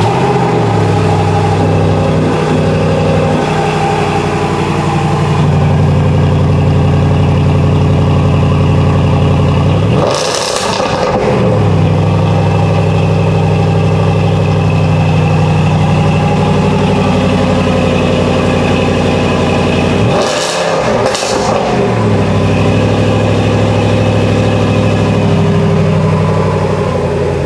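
Range Rover Sport SVR's 5.0-litre supercharged V8 idling through its quad exhaust tips just after being started. It is blipped once about ten seconds in, the pitch shooting up and falling straight back. It is blipped twice in quick succession around twenty seconds in, then settles back to a steady idle.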